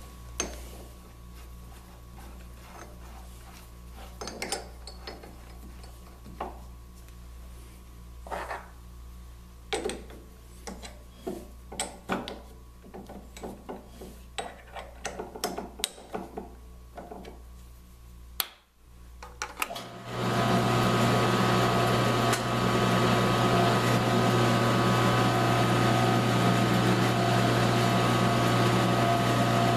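Clicks and knocks of metal and wood being handled as a 2-inch bit is fitted and the drill press chuck is tightened. About twenty seconds in, the drill press motor is switched on and runs steadily with a constant hum and whine, its bit spinning free.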